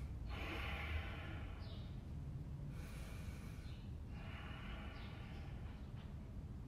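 A woman's slow, controlled yoga breathing: three long, audible, airy breaths, each about a second, over a steady low background rumble.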